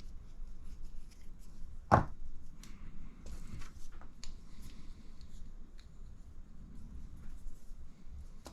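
Small RC shock parts and hand tools being handled at a workbench: light clicks and taps, with one sharp click about two seconds in and a cluster of smaller clicks just after, then quiet rustling.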